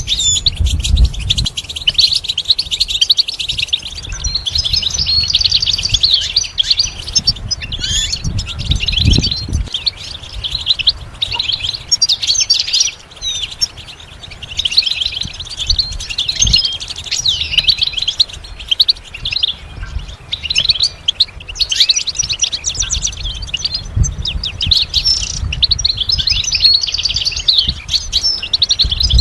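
European goldfinch singing: a long, rapid, tinkling run of twitters and trills with only brief pauses, over occasional low thuds.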